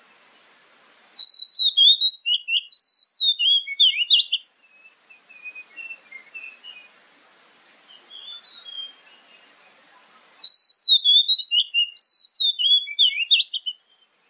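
Oriental magpie-robin singing: a loud phrase of clear whistled notes jumping up and down in pitch, softer twittering after it, then the same loud phrase again near the end.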